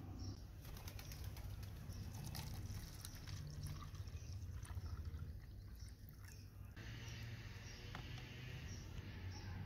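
Yellow liquid poured into a thin plastic cup, a continuous pour with splashing for several seconds that changes to a quieter hiss about two-thirds of the way through.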